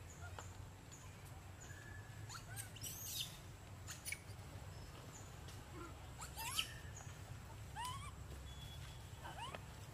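Scattered short, high animal chirps and squeaks, several rising quickly in pitch, the loudest about three seconds in and again past six seconds, over a steady low rumble.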